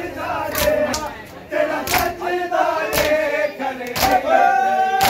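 A crowd of men chanting together while beating their chests in matam, the Shia mourning ritual. The slaps land in unison about once a second.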